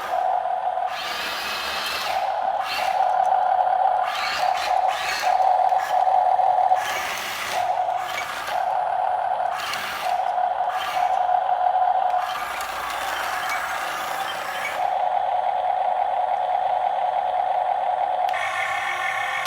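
Huina RC excavator's electric motors and plastic gearboxes whirring in short spurts, starting and stopping every second or two as the controls are worked, with gear rattle over the whine; it runs more steadily near the end.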